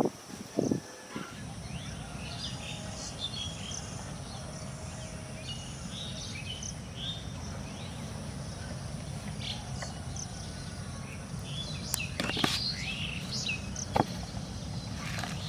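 Birds chirping in short scattered calls over a steady low background rumble and a faint high insect drone. There are a few sharp knocks in the first second and sharp taps about twelve and fourteen seconds in.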